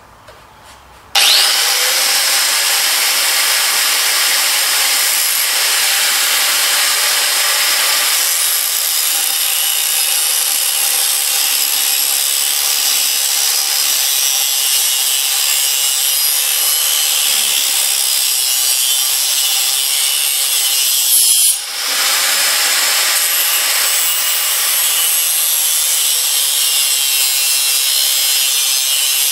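Angle grinder starting up about a second in and cutting through a metal bar: a loud, steady grinding whine. It drops out briefly about two-thirds of the way through, then carries on cutting.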